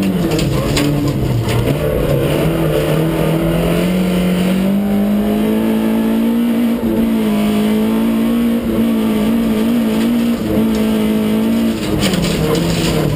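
Ford Escort RS2000 Mk6's 16-valve four-cylinder engine under racing load, heard from inside the cabin. Revs dip and climb back near the start, run high and slowly rising through the middle, then drop again near the end, over the hiss of tyres on the loose surface.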